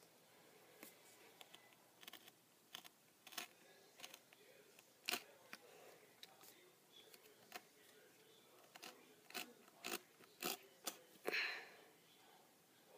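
Craft knife cutting through the woven strips of a wallet on a cutting mat: faint scattered clicks and ticks of the blade, with a longer scraping stroke about eleven seconds in.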